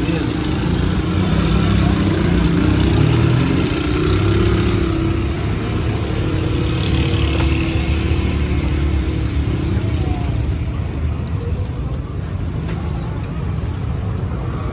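Motor vehicle engine running close by, with a steady low rumble and a pitch that rises and falls between about two and six seconds in.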